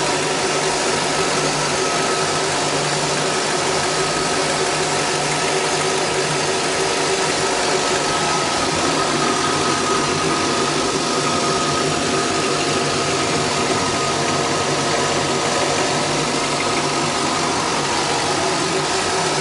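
The inboard engine of a 2008 MB Sports B52 V23 boat idling steadily, with no change in revs.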